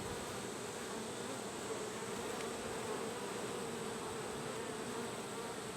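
Honeybees buzzing in a steady, even hum around an open hive.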